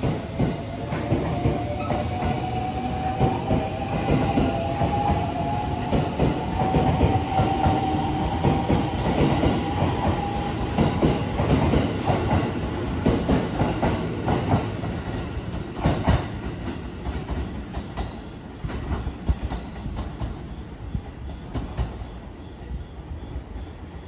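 Rapid Marine Liner electric train (JR West 223-series cars) pulling away: the traction motors whine up steadily in pitch as it gathers speed, with wheels clacking over the rail joints, then the sound fades as the last car goes by.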